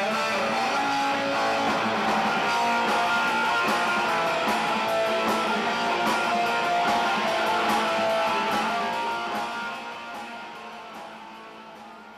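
Rock music led by strummed electric guitar over bass and drums, fading out over the last few seconds.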